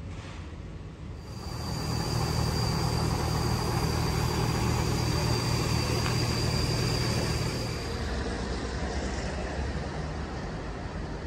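An engine running close by: a steady low hum with a thin high tone over it. It grows louder about a second and a half in and eases off after about eight seconds.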